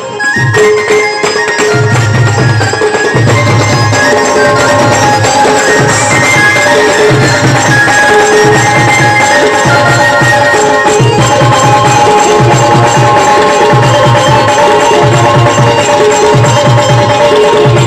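Band music played loud: a melody of sustained, held notes over a steady, driving drum beat.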